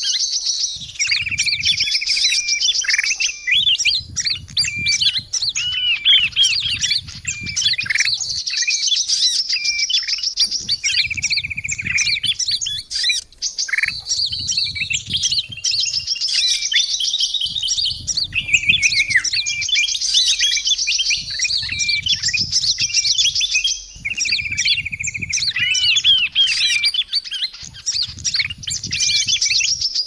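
A bird-lure recording of many small songbirds chirping, whistling and trilling over one another without pause, sold as a mix of kutilang emas (a bulbul) and small birds. A buzzy trill returns every several seconds, and a low rumble comes and goes underneath.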